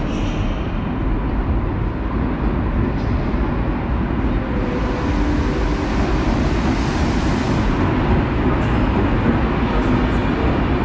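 Locomotive-hauled Intercity passenger train pulling into the platform, a steady rumble of wheels on rails as the locomotive and then the coaches roll past. A hiss swells and fades about halfway through.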